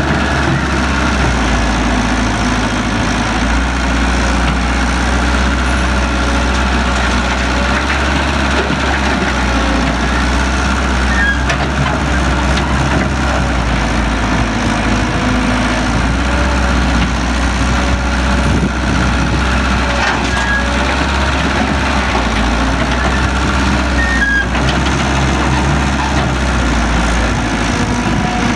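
Heavy diesel machinery running steadily, an excavator working alongside a truck, with a low engine hum that shifts in level every few seconds and a few faint knocks.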